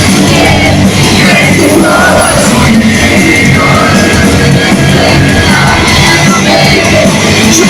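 Rock band playing a song with vocals, very loud.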